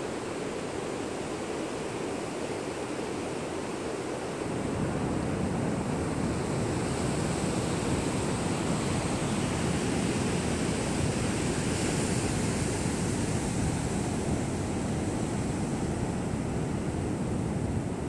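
Surf on a sandy beach: a steady rush of breaking and washing waves that grows louder about four and a half seconds in and eases a little near the end.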